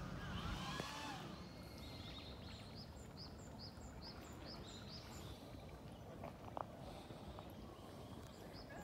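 A small bird singing a quick series of high, thin repeated notes, about three a second, in two runs, over steady low outdoor background noise. A single short click sounds about two-thirds of the way in.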